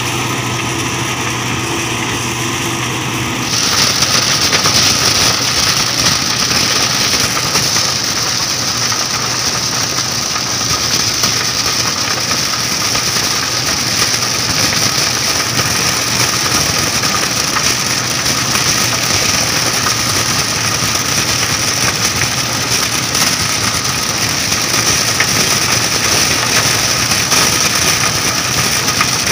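Crown MCH PJ-2000 Star combine harvester running steadily while harvesting corn. About three seconds in the sound jumps to a much louder, denser machinery noise heard up close at the operator's seat, with a strong hiss on top of the engine.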